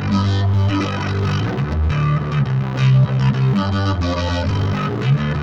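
Electric bass guitar played through an Aguilar Octamizer octave pedal into a Big Muff fuzz: a distorted bass line with an added lower octave, the notes changing every half second to a second.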